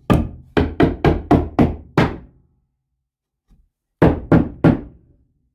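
Hammer blows on wood: a quick run of about eight sharp strikes, then three more about four seconds in.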